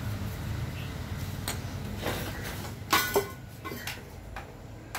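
Metal hand tools, a hammer and a punch, knocking and clinking as they are handled. There are several separate knocks, with the loudest two in quick succession about three seconds in.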